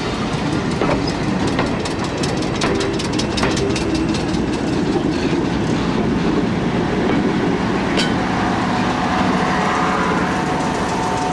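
Slam-door railway coaches of a 4-CEP unit and Motor Luggage Vans rolling slowly past, wheels rumbling and clicking over rail joints in a quick run of clicks in the first few seconds. One sharp click comes about eight seconds in, and a thin steady tone joins the rumble near the end.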